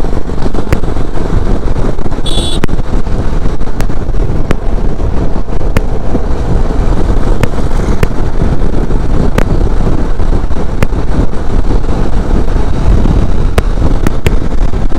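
Motorcycle riding at about 70 km/h: steady wind rush over the microphone over the running engine and road noise, with short clicks here and there and a brief high beep about two seconds in.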